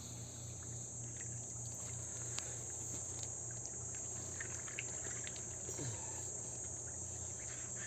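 Steady high-pitched insect chorus, with a low background rumble and a few faint clicks.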